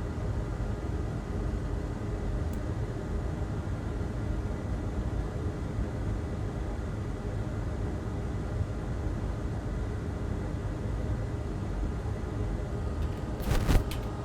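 Steady low background rumble with a faint steady whine, like a fan or air handling, and a short sharp clatter about half a second before the end.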